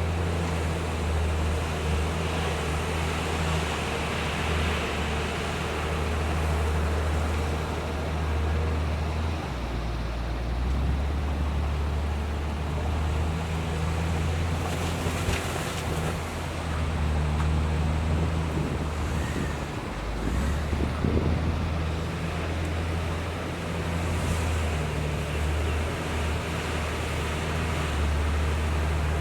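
Heavy diesel engine of earthmoving machinery running steadily under load, its note shifting as the engine speed changes, about ten and twenty seconds in.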